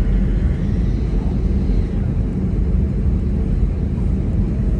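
Low, steady rumble of an Airbus A320neo heard from inside the cabin, on the ground after landing.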